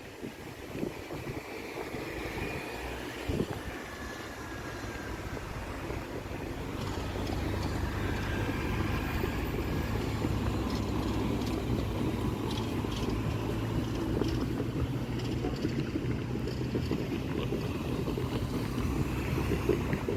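SM42 diesel shunting locomotive's engine running with a steady low drone that grows louder from about six seconds in.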